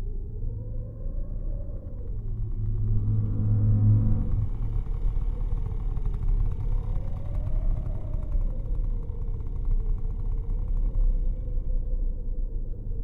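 Low rumbling film-score drone with slowly rising and falling tones, swelling to a deeper, louder hum about three seconds in.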